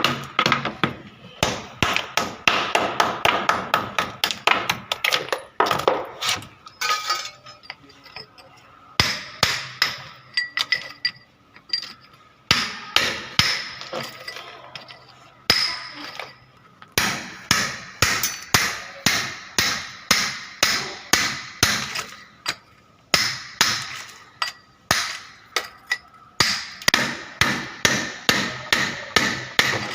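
Hammer striking repeatedly in quick runs of blows with brief pauses between runs, each blow with a short metallic ring.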